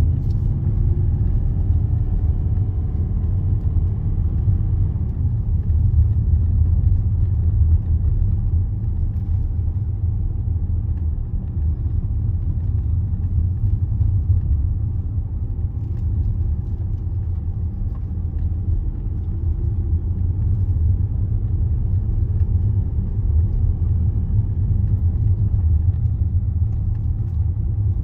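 Car driving along a road: a steady low rumble of engine and tyres, with the engine note shifting in pitch during the first few seconds.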